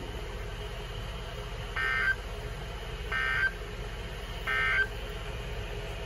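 Three short bursts of Emergency Alert System data tones, the end-of-message code, each about a third of a second long and roughly a second apart, heard through a Motorola two-way radio's small speaker over a faint steady hiss.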